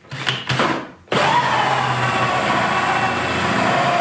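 Cordless drill spinning a 3.5-inch hole saw through the side of a plastic 5-gallon bucket, starting abruptly about a second in after a few short knocks. The motor's whine sinks slightly in pitch as the saw bites into the plastic.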